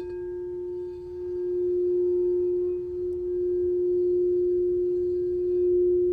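Crystal singing bowl sounding one sustained, pure ringing tone, its loudness swelling and fading in slow waves. It is the bowl played for the heart chakra.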